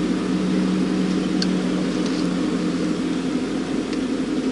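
Steady low hum of an idling vehicle engine, with two faint ticks, about a second and a half in and near the end.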